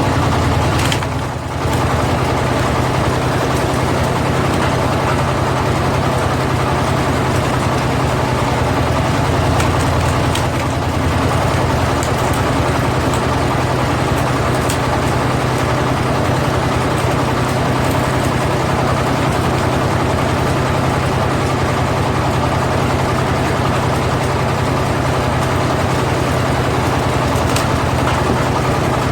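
Power tiller's single-cylinder diesel engine running steadily while it drives a firewood splitter, its level dipping briefly about a second in and again around ten seconds in.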